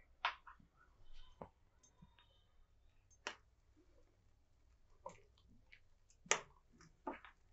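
A hand mixing rice flour into a thick batter of ground urad dal in a glass bowl: faint, with about six short clicks spread out, the sharpest about a third of a second in and a little after six seconds in.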